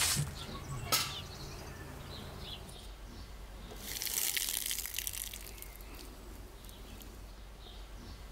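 Dry grain poured from a glass jar into a metal mesh sieve, a hissing rattle lasting a little over a second near the middle. A single sharp crack about a second in.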